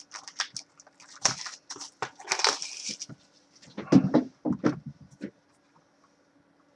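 Plastic shrink-wrap crinkling and tearing as a cardboard trading-card box is unwrapped and handled, with a couple of duller knocks and rubs about four to five seconds in.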